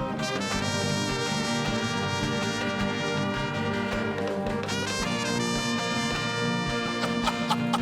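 Instrumental background music led by brass, with sustained chords, upward-sweeping phrases about half a second in and again near five seconds in, and a steady beat underneath.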